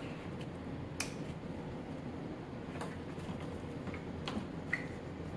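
A few short, sharp clicks and light knocks, the loudest about a second in, from parts being handled as a Yamaha WR250R's fuel tank is fitted back onto the frame, over a steady low hum.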